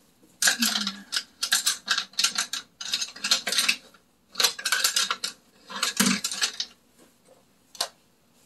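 Small hard objects clattering and clicking against each other in quick bursts, several clusters over about six seconds, then one last click near the end, as when makeup items are rummaged through.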